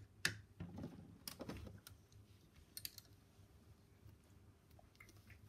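Light clicks and taps of small plastic doll accessories and doll furniture being handled and set down. The clicks come irregularly, most of them in the first three seconds.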